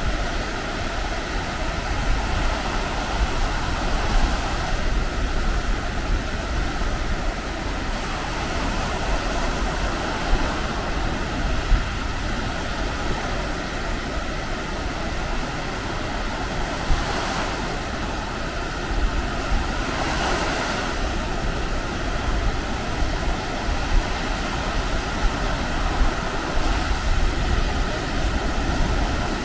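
Baltic Sea surf washing onto a beach in a steady rush, swelling a little louder a couple of times past the middle, with wind rumbling on the microphone.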